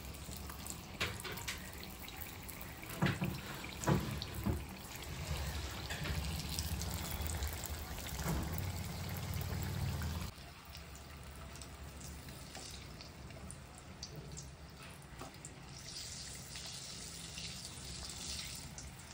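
Hot oil sizzling and bubbling as batter-coated boorelu deep-fry in a kadai, with a few knocks of utensils in the first half. The sound changes abruptly about halfway through.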